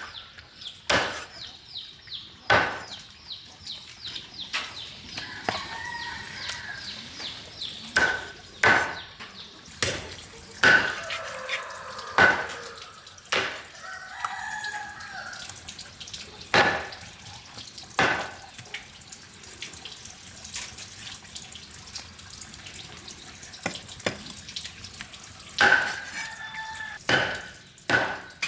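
Farmyard fowl calling, with sharp knocks every second or two throughout and some splashing water.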